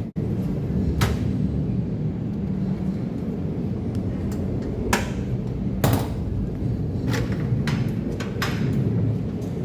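Rebar bending machine running with a steady low hum, and sharp metallic knocks every second or two as the steel bars are handled and bent.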